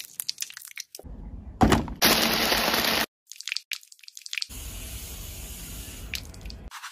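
Kitchen prep sounds for a blended strawberry milk drink: a few light clicks and taps, then a small electric blender runs loudly for about a second and stops abruptly. After a short pause, a quieter steady rushing sound lasts about two seconds.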